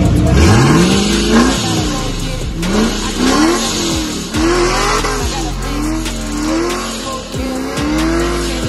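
Supercharged 4.6-litre three-valve V8 of a 2009 Mustang GT revving repeatedly, its pitch climbing and falling. A long climb comes about a quarter second in, several quicker blips follow in the middle, and a longer held rev comes near the end, with music underneath.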